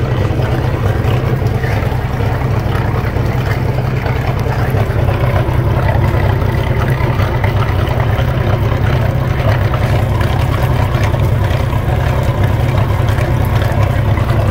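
Newly installed MerCruiser 4.3 L Vortec V6 engine running steadily on a flushing hose, exhausting through the Alpha One sterndrive, with cooling water splashing out onto the concrete. The engine gets a little louder about five seconds in.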